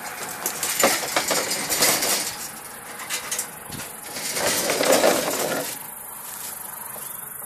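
Wire-mesh live trap rattling and clinking as it is handled and its door worked, with a quick run of metallic clinks in the first couple of seconds and a louder scraping rustle about four to five seconds in.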